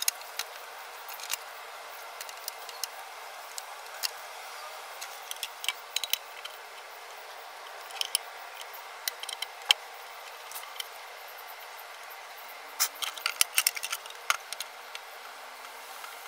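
Scattered small metallic clicks and rattles as a Dell computer power supply is handled and taken apart, coming in a few bunches over a steady faint hiss.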